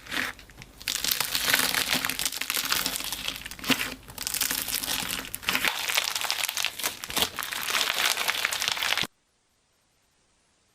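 Crunchy slime being squeezed and pressed by hand, giving a dense crackling of many tiny pops with a couple of brief pauses. It cuts off suddenly about nine seconds in.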